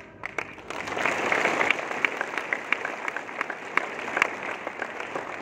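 Audience applauding. The clapping swells over the first second and then holds steady, with single sharp claps standing out.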